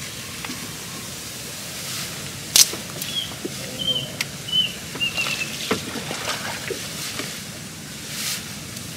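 Water sloshing around a small boat, with scattered knocks on the hull; the loudest is a sharp knock about two and a half seconds in. Near the middle come four short high chirps, a little under a second apart.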